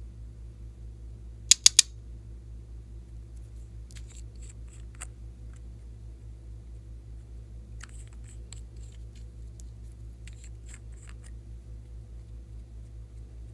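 Three sharp plastic clicks in quick succession about a second and a half in, from small egg-shaped plastic cosmetic containers being snapped open. Fainter light tapping follows twice, as the applicators dab onto the tray. A steady low hum runs underneath.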